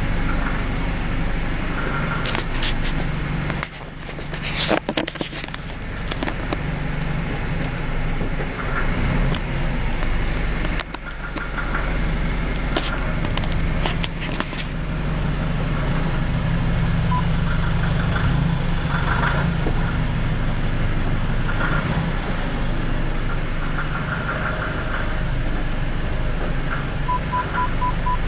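BMW E90 running with sharp clicking ('ka-da, ka-da') as the car pulls away from a stop: an abnormal noise that shows up only once the car is warm. The clicks come in clusters about two, five and thirteen seconds in, over a steady engine hum. A row of short electronic beeps sounds near the end.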